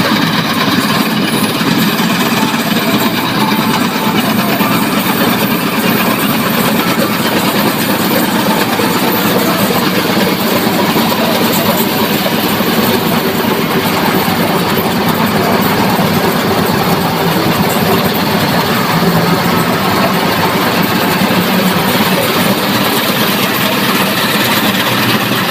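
John Deere 5075E tractor-mounted combine harvester running close by, its diesel engine and harvesting machinery making a loud, steady mechanical noise.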